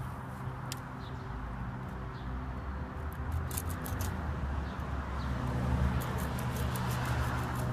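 Hand pruning saw cutting through wood in uneven strokes, with a steady low rumble underneath.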